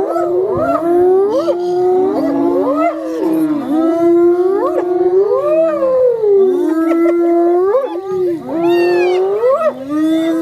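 Several hyenas calling at once, a continuous chorus of overlapping rising and falling whoops and yelps.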